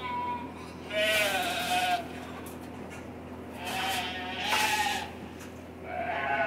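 Weanling lambs bleating, about four loud wavering calls, some overlapping. Freshly weaned lambs are this vocal because they are unhappy at being parted from the ewes.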